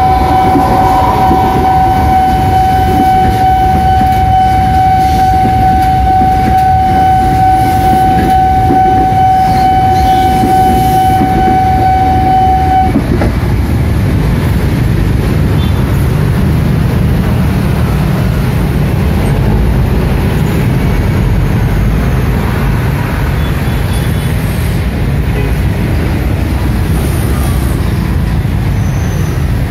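A level-crossing warning signal sounding one steady high tone over the low rumble of a passing electric commuter train; the tone cuts off suddenly about thirteen seconds in, and the train rumble goes on.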